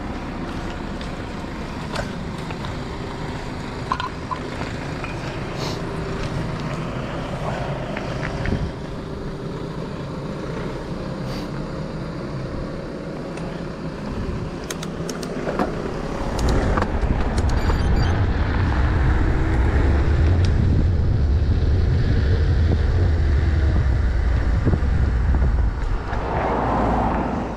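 Mountain bike rolling on tarmac beside road traffic, with steady tyre and road noise and occasional sharp clicks and knocks. About sixteen seconds in, a much louder low rumble sets in and holds until just before the end.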